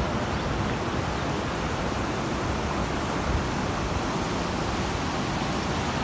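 Steady rush of river water pouring over rocky ledges and through shallow rapids, an even, unbroken noise.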